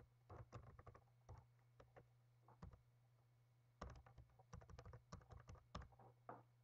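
Computer keyboard keys clicking faintly as text is typed into a form: a few scattered keystrokes, then a quicker run of keystrokes from about four seconds in.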